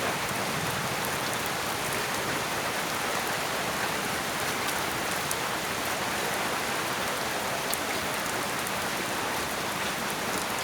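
Steady rain: an even hiss with scattered drops ticking.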